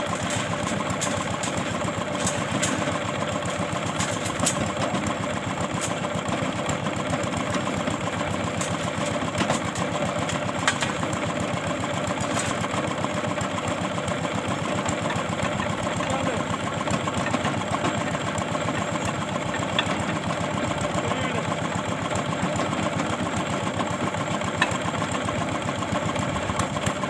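Engine of a water-well boring rig running steadily, with a few short sharp clicks over it.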